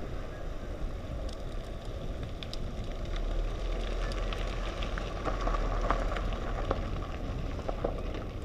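Mountain bike riding: steady rolling rumble of the tyres and wind on the microphone, with scattered small crackles and clicks of grit and gravel under the tyres.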